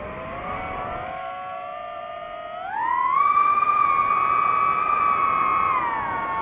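DJI FPV quadcopter's motors and propellers whining, the pitch climbing steeply about three seconds in as the motors speed up, holding high, then dropping back near the end.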